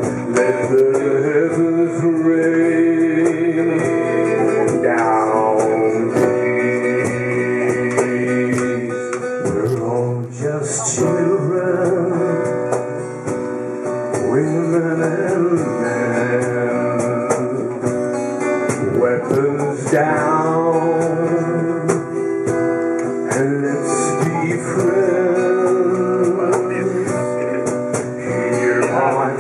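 Live acoustic music: acoustic guitars playing, with a long-held melody line over them that slides upward in pitch a few times.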